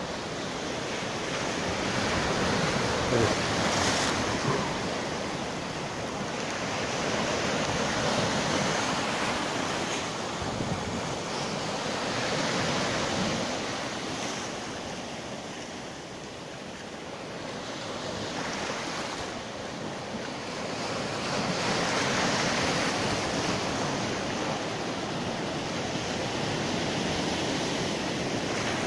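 Sea waves surging and breaking over shoreline rocks, swelling and easing every few seconds, with wind buffeting the microphone.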